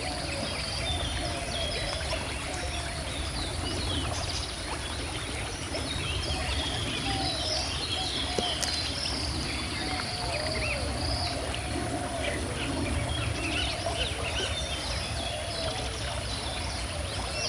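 Steadily flowing river water, with several birds singing and chirping over it throughout.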